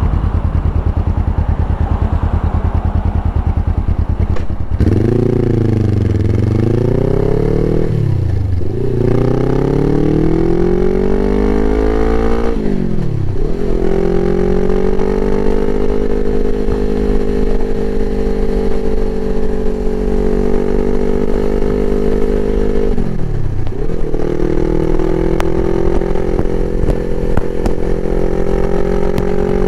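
Suzuki GS500E parallel-twin engine through a Takkoni aftermarket exhaust. It pulses at low revs at first, then pulls away and accelerates. Its pitch climbs in each gear and drops sharply at gear changes about 8, 13 and 23 seconds in, holding nearly steady at cruise in between.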